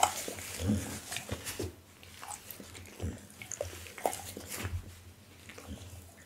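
Close-miked wet mouth and lip-licking sounds from a pit bull, mixed with a tissue rubbing over its face: scattered small clicks and rustles, loudest in the first second.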